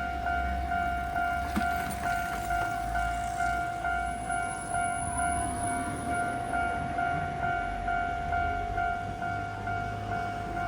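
Japanese level-crossing alarm on a tram line ringing its electronic two-tone 'kan-kan' warning, pulsing evenly about twice a second, with a low rumble underneath.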